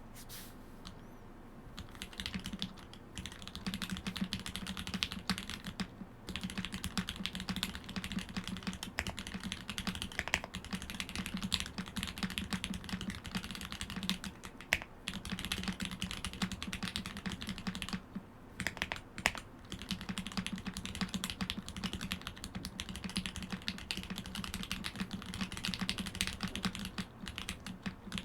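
Continuous fast typing on a Mode Eighty mechanical keyboard with Lil' Tykes (JWK recolor) switches, TX-filmed with stock springs, Zeal stabilizers and triple-shot Domikey Dolch ABS keycaps. The keystrokes begin about two seconds in and run on with a few short pauses.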